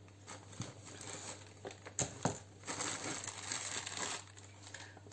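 Plastic packaging crinkling and rustling as it is handled, with a couple of sharper clicks about two seconds in; it dies down near the end.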